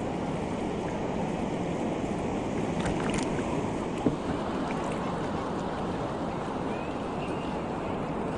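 Steady wash of shallow seawater with wind on the microphone, and one sharp tap about four seconds in.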